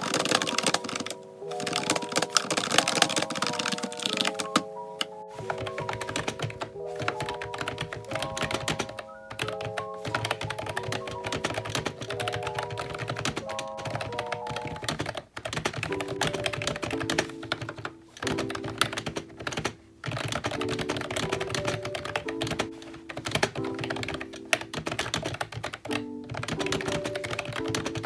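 Typing on a Ubotie retro keyboard: fast, continuous clacking of keys with a few brief pauses, over background music playing steady chords.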